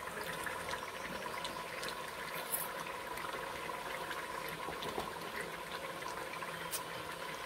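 Beef and masala simmering in oil in an open pressure cooker pot: a steady bubbling sizzle with many small crackling pops.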